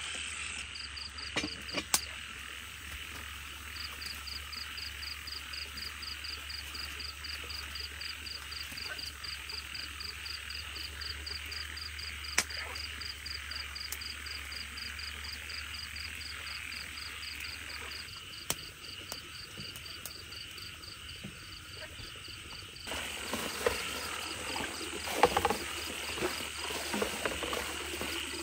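A night chorus of frogs and insects: a steady high insect trill with a fast, even pulsing call over it, and a few sharp clicks. Near the end, water splashes and pours as basins are handled.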